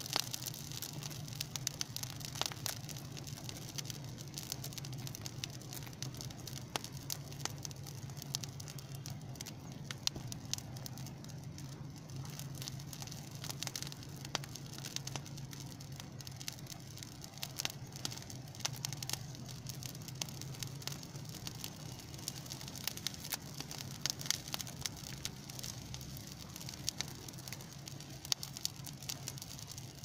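Burning heap of dry grass and brush crackling, with a constant stream of small sharp pops and snaps over a steady low hum.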